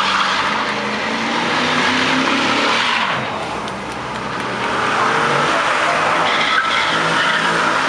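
A Corvette's V8 doing a burnout: the engine is held at high revs while the spinning rear tyres squeal. It eases off briefly about three seconds in, then picks up again.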